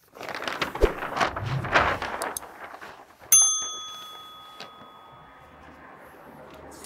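Butcher paper being unrolled off its roll across a table, crinkling and rustling. A little over three seconds in, a single bright bell ding rings out and slowly fades: a subscribe-notification sound effect.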